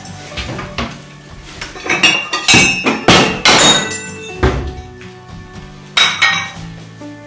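Ceramic plates clinking and knocking as they are handled and set down on a countertop: a cluster of sharp knocks about two to four seconds in and another near six seconds. Background music plays underneath.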